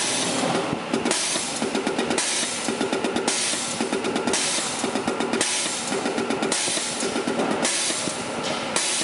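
NRE36939 diesel fuel injector being pop-tested on an injector test bench, firing in repeated cycles: a rapid mechanical chatter, with a one-second hiss of spray about every two seconds. Its opening pressure sits around 3720–3780 psi, below the injector's 3780–3860 psi spec, which is why the test is marked not OK.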